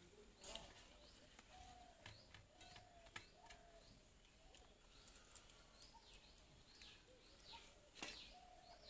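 Faint birdsong: small birds chirping again and again with short falling calls, with a few soft clicks in between.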